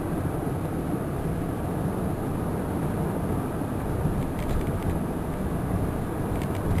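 Steady road and engine rumble heard inside a 1994 Cadillac DeVille's cabin while driving, with a few faint ticks about four and a half seconds in and again near the end.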